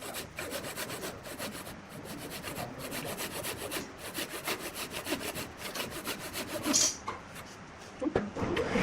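A tool scraping wood in fast, even strokes, several a second, with one louder, harsher scrape just before seven seconds in.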